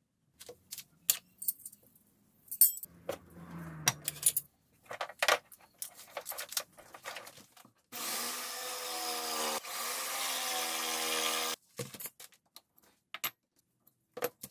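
Clicks and clatter of tools being handled, then tape pulled off a roll in two long buzzing pulls, about eight seconds in, that stop abruptly.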